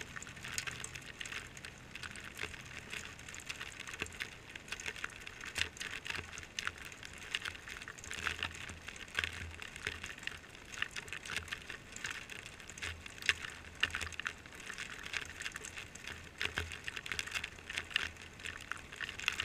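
Rain falling, with many irregular close taps of raindrops striking the camera housing, and rainwater trickling from a metal downspout outlet onto concrete.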